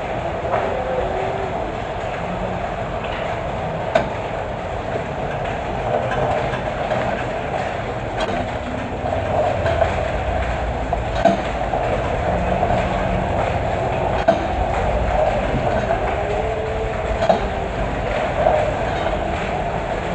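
Fujihama 3600 W gasoline inverter generator running steadily, with a few sharp clicks over the engine sound.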